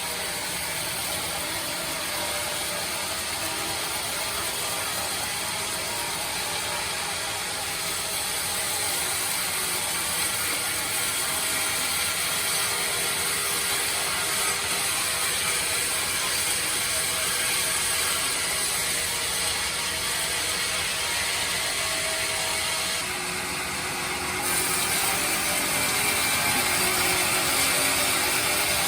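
Sawmill band saw running and sawing through hard teak, a steady dense hiss with a mechanical rattle. It dips briefly about 23 seconds in, then runs a little louder.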